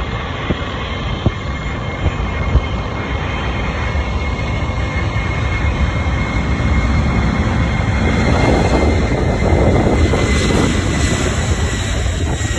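Boeing 747's four jet engines running with a loud, steady rumble and a thin high whine as it rolls along the runway, growing louder from about two-thirds of the way in.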